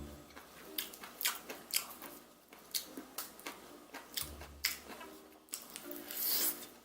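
Crispy-battered fried chicken drumstick being bitten and chewed: a string of sharp, crisp crunches, with a longer crackling crunch near the end.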